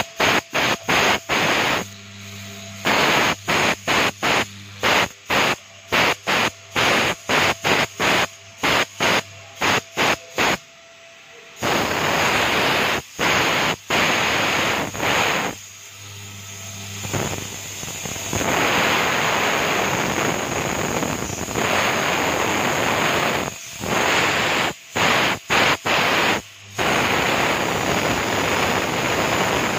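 CNC router's HITECO electric spindle cutting petal shapes out of a white-faced board, a loud hissing cut noise with a steady high whine under it. For about the first twelve seconds the cutting noise breaks off and resumes many times in quick succession, then it runs more steadily with a few short breaks.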